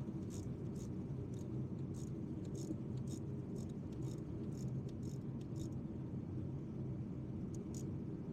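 Faint ratchet clicks, about two a second, as a spark plug is wound down into the cylinder head of a Ford 3.5 EcoBoost V6, over a steady low hum.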